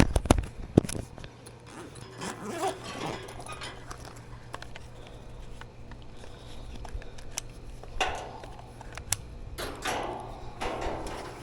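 Clicks, knocks and rustling of tools and meter leads being handled at an air conditioner's outdoor unit, loudest in the first second, over a steady low electrical hum.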